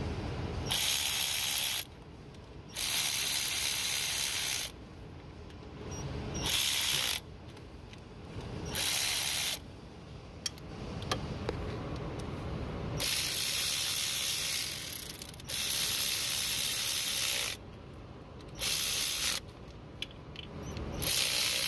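Red cordless ratchet running in about eight separate bursts of one to two seconds each as it drives the rocker-arm bolts on a 6.7 Cummins cylinder head. Short pauses fall between the runs.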